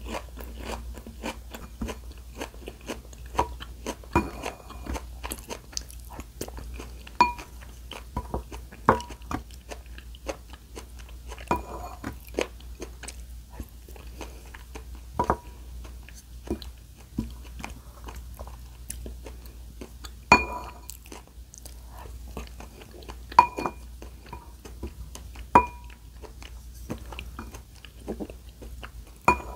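Close-miked chewing and crunching of food, with sharp ringing clinks of utensils against a dish several times.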